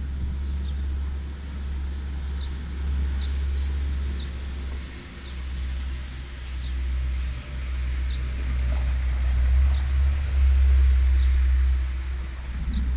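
Deep, continuous rumble of rolling thunder from an approaching thunderstorm, swelling louder about eight seconds in. Short high chirps, about one a second, sound over it.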